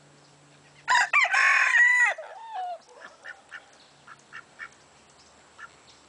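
A rooster crows once, loud and drawn out, starting about a second in, with a falling tail at the end. A few soft short clucks and calls follow.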